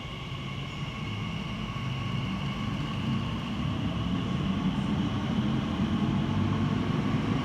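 Elizabeth line train (a Class 345) approaching through the tunnel to an underground platform: a low rumble growing steadily louder, with a steady high whine above it.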